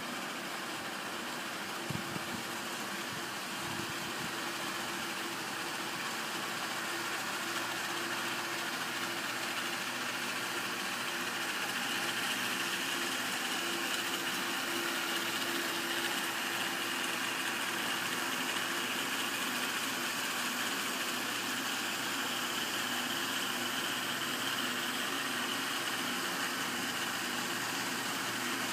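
Small electric motors running steadily, spinning the rotors of model helicopters, with a steady hum and a whirring haze that grows a little louder about twelve seconds in. Two short knocks come near the start.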